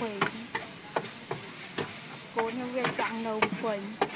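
Metal spatula scraping and clanking against a wide steel wok while stir-frying noodles, with a light sizzle underneath. The strokes are sharp and irregular, about two a second.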